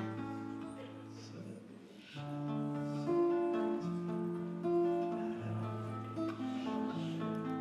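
Acoustic guitar playing an instrumental passage of a song's accompaniment: picked chords over low bass notes, with no singing.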